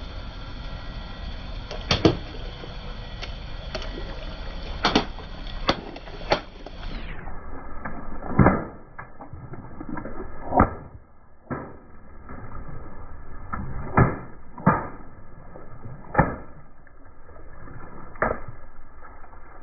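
Water balloons and twisted-balloon rings bursting one after another under a slowly rolling car tyre: about ten sharp pops, spaced a second or more apart, over a low rumble of the car.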